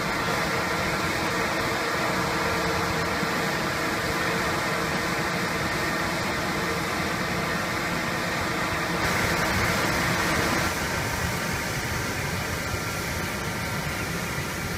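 SkanCraft Dust35A dust-suppression mist cannon running: a steady blowing, spraying noise from its fan and water mist, with a hum of steady tones. About nine seconds in the sound shifts and grows brighter for a couple of seconds, then settles slightly quieter.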